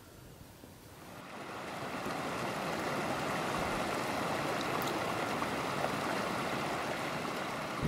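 Small mountain creek running over rocks and a log jam, a steady rushing that fades in over the first two seconds and then holds.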